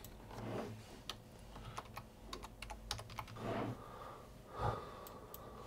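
Typing on a computer keyboard: a fast, uneven run of key clicks.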